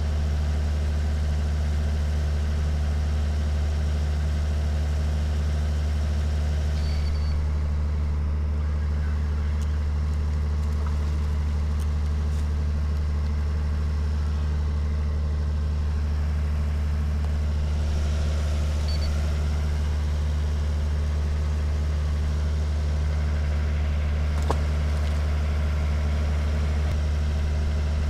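A steady, unchanging low mechanical hum, like an idling engine or motor. A single sharp click sounds near the end.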